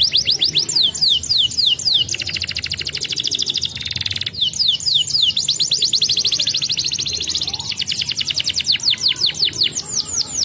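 Domestic canary singing: quick runs of repeated notes that each slide downward in pitch, alternating with stretches of very fast buzzing trill.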